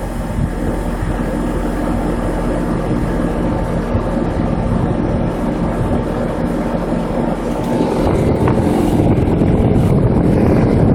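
Trane 2TWB3048 R22 heat pump outdoor unit running: a steady compressor hum under the rush of the condenser fan, growing louder about eight seconds in.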